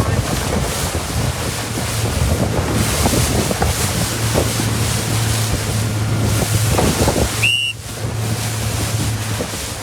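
Wind buffeting the microphone over rushing water on open sea, with a steady low engine hum from a boat underneath. About seven and a half seconds in the sound briefly drops out and a short high chirp is heard.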